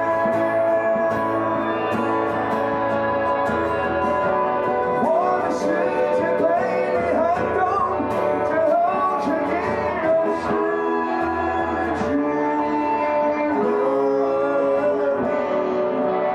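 Live band song: a man singing with acoustic and electric guitars. A wavering lead melody stands out through the middle.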